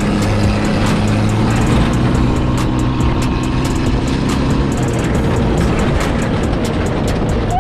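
Off-road buggy engine running under way, a loud steady low drone over rough noise.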